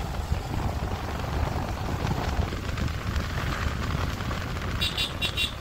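Wind buffeting a microphone on a moving motorcycle, a rough, fluctuating low rumble. A fast, high pulsing sound joins in near the end.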